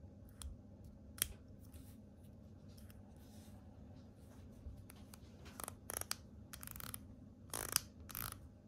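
Small mechanical clicks and rubbing from a vintage Auto Chinon 35mm M42 lens being worked in the hands as its aperture opens and closes. There is one sharp click about a second in, then a cluster of short scrapes and clicks near the end.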